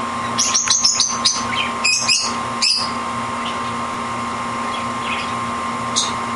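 A canary chirping: a quick run of short, high chirps in the first three seconds, then one more near the end, over a steady background hum.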